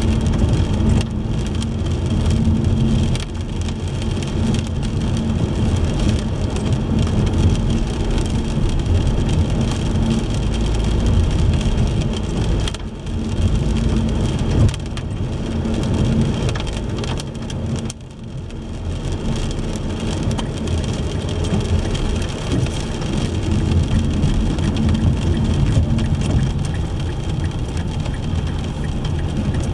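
Car driving in the rain: a steady low road rumble mixed with the hiss of rain and wet pavement, easing briefly twice.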